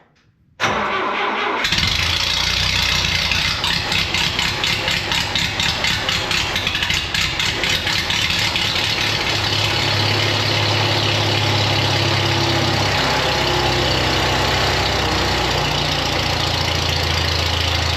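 The 1972 Allis Chalmers M65 grader's spark-ignition engine is cold-started: a moment of cranking, then it fires almost at once and keeps running, uneven for the first several seconds before it settles, with changes in engine speed later on. With its choke now closing fully, it starts right off in the cold, which cures its hard-starting condition.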